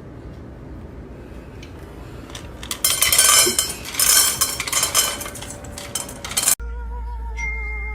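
Dishes and cutlery clattering loudly in a dense run of knocks and clinks for about four seconds, starting about three seconds in, over a low steady hum.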